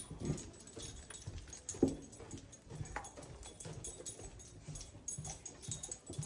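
A dog gives short whimpers twice, the second rising sharply in pitch, over soft, regular footsteps.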